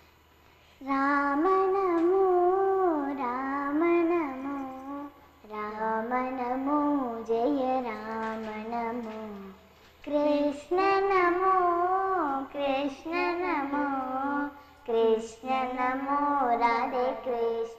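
A girl singing a melodic song solo, in four phrases with brief pauses between them, her voice wavering through ornamented turns.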